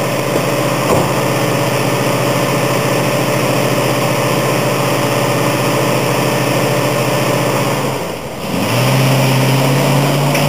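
Ford Bronco engine running steadily as it pulls on a chain hooked to a tree. About eight seconds in the sound briefly drops, then comes back louder at a higher, steadier pitch.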